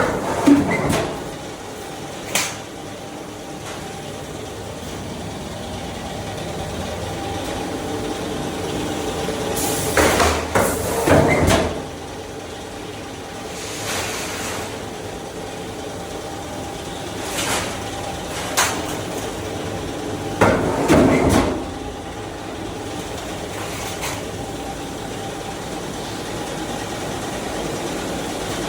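Automatic washing-machine drum production line running with a steady machine hum and faint steady tones. Sharp metallic knocks come here and there, and two louder spells of clattering come about ten seconds apart.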